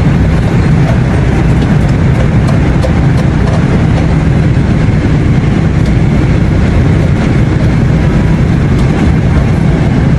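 Steady low roar of a jet airliner cabin in flight: engine and airflow noise, with a few faint ticks.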